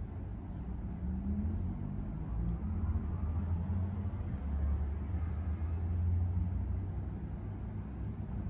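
Seabreeze ceiling fan running, a steady low motor hum with the whoosh of its rattan blades moving air.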